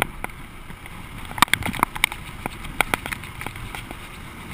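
Mountain bike rattling down a grooved concrete track: irregular clicks and knocks from the frame and chain jolting over the ridges, with a denser cluster about a second and a half in, over a steady rush of tyre noise.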